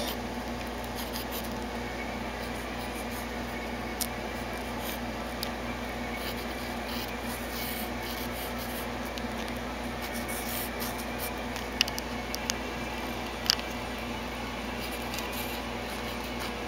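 Pencil scratching and rubbing on paper as it draws short strokes, over a steady low hum, with a few sharp ticks near the middle.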